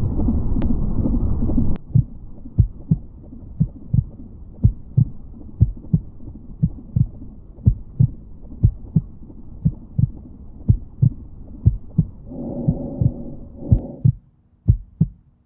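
A low rumbling noise cuts off suddenly about two seconds in, giving way to a slow heartbeat: soft low thumps in lub-dub pairs, about one beat a second. A low humming drone joins the beat for a couple of seconds near the end.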